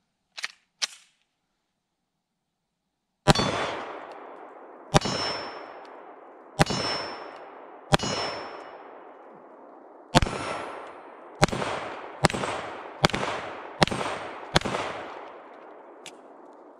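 Ten shots from a Canik SFx Rival 9mm pistol, each with a long echoing tail. The first four are about a second and a half apart, the last six quicker, under a second apart, and steel targets ring faintly after hits. Two light clicks come before the first shot.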